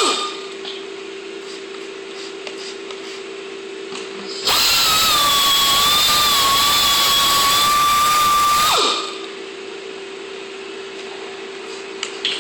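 Electric drill running in spells of high and low speed. It drops to a quieter low hum right at the start, speeds back up to a loud high whine about four and a half seconds in, and slows to the low hum again near nine seconds.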